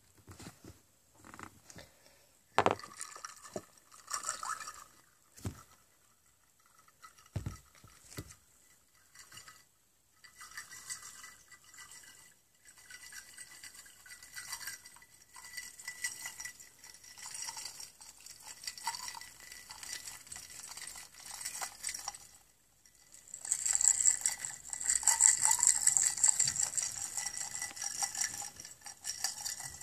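Close-miked wiping and scrubbing: a few separate taps and clicks, then fast, scratchy rubbing that grows louder about 23 seconds in.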